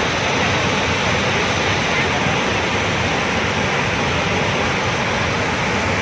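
Waterfall in full monsoon flow: a steady rush of heavy water plunging over the rock ledge into the pool below.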